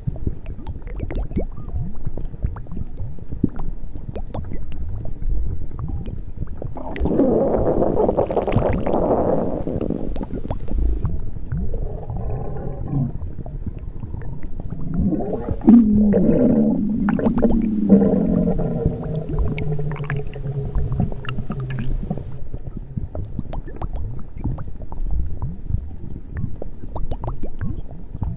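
A woman's stomach growling and gurgling. A bubbly gurgle swells about a quarter of the way in, and a long, low, wavering growl runs through the middle, over a constant crackle.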